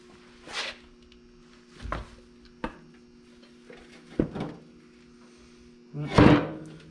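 Metal clunks and scrapes of a hydraulic pump being handled and pushed against a vintage Case tractor's PTO housing, a handful of separate knocks with the loudest near the end. The pump will not seat: a raised piece of the mounting fouls it.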